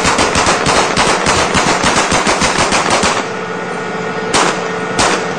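A tank rolling over and crushing a car: a fast, even run of sharp cracks and clanks, about six or seven a second, for some three seconds, then two single loud cracks near the end.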